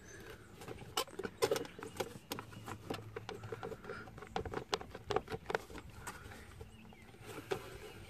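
Plastic A-pillar trim of a Jeep Wrangler JK clicking and creaking as it is pulled and wiggled by hand against its retaining clips: a run of irregular sharp clicks and knocks, thickest in the first two thirds and thinning out near the end.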